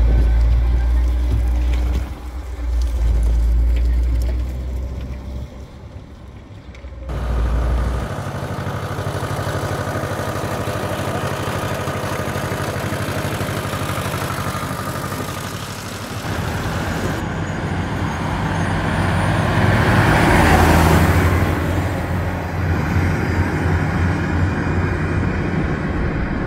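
Farm tractor diesel engines running in a string of short outdoor clips, the sound changing abruptly at each cut from one tractor to the next. One tractor passes close about two-thirds of the way through, the loudest moment.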